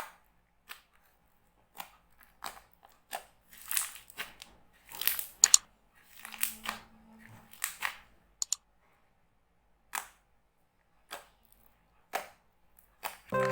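Scattered small clicks, taps and short rustling noises of objects being handled, with quiet gaps between them. Music starts near the end.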